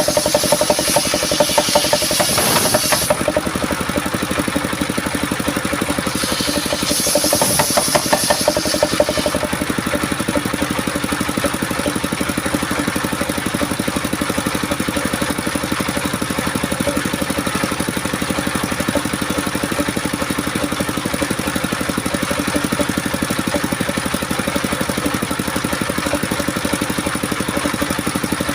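Homemade circular saw machine running steadily, its blade cutting coconut wood twice in the first ten seconds, each cut adding a harsh, high rasp over the running drone, then spinning free.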